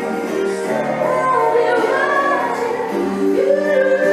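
Music with singing: a voice holds long notes that glide upward over sustained chords.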